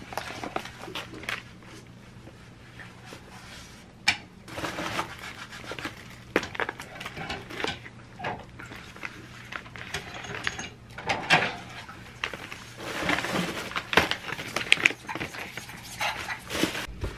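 Plastic food packaging rustling and crinkling as sealed pouches of chicken breast and roast pumpkin are handled and set down, with a plastic liner bag rummaged through. There are scattered sharp clicks and taps over a faint steady hum.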